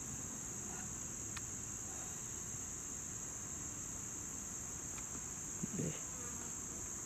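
Steady high-pitched insect chorus, an unbroken drone with no change in pitch. A short voice sound comes just before six seconds in.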